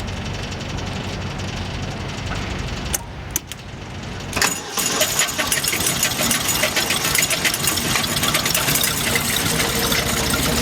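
Brush Bandit 65XP wood chipper's engine running steadily at idle. A few clicks come about three seconds in and a sharp knock about a second later, then the chipper runs with a loud, dense crackling clatter.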